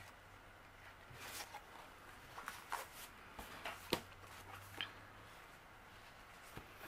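Paper card stock being handled and laid down on a table: scattered soft rustles and light taps of cards sliding and being set down, the sharpest tap about four seconds in.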